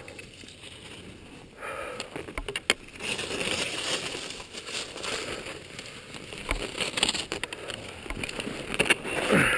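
Skis sliding and scraping over snow in uneven swells of rough hiss, with a few sharp clicks about two and a half seconds in.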